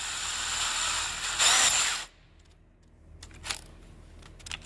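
Electric drill running with a ratchet-set socket bolted into its chuck. It speeds up louder about one and a half seconds in, then stops suddenly about two seconds in. A few light clicks of handling follow.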